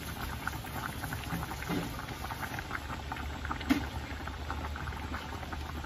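Chicken vermicelli (sotanghon) soup boiling in a saucepan: a steady, dense bubbling and popping. One sharper click stands out a little past halfway.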